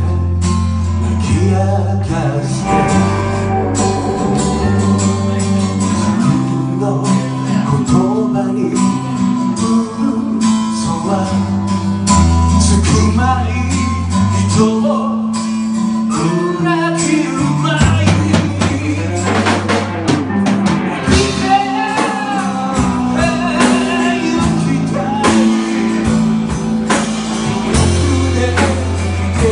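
Live band performance: a man singing over strummed acoustic guitar, electric bass and drum kit, with the bass moving in steady held notes.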